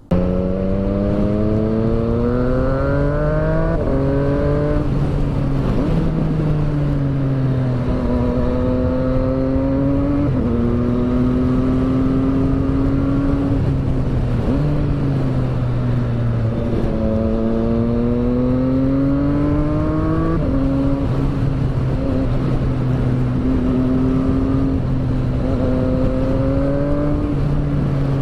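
Triumph Street Triple 765 R's 765 cc inline three-cylinder engine under way, pulling up through the revs and dropping sharply at each upshift, several times over, with wind and road noise.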